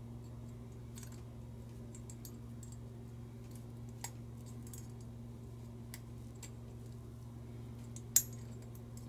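Small metal tools clicking and tapping faintly against a butane lighter being pried open, with one sharper click about eight seconds in, over a steady low electrical hum.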